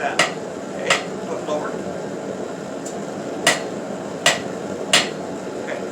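Hand hammer striking hot steel on an anvil, about five irregularly spaced sharp blows with a short ring after each: glancing blows at the anvil's edge, drawing the points of a forged leaf. A steady hiss runs underneath.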